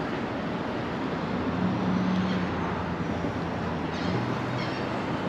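Steady wind and outdoor noise on the microphone, under a low engine hum that drops to a lower pitch about four seconds in.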